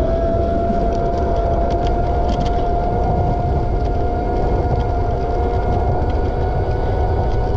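Steady rumble of wind and rolling wheels from a vehicle travelling along a cycle lane, with a steady motor whine that slowly rises in pitch.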